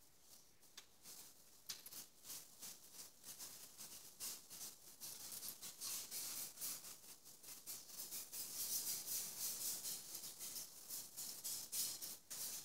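Rapid scratchy scraping strokes, several a second, getting denser and louder about halfway through: a butcher's knife scraping and cutting at a hanging pig carcass.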